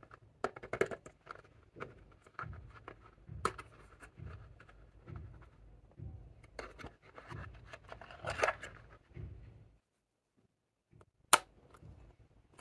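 Hands handling a cardboard lipstick box and its plastic insert tray: irregular scraping, rustling and small knocks. After a short near-silent gap, one sharp click comes near the end as the lipstick's cap is pulled off.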